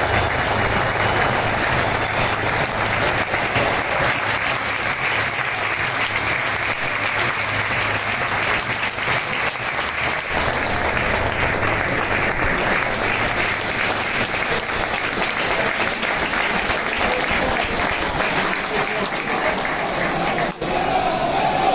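Large football stadium crowd applauding steadily, with a brief dip near the end.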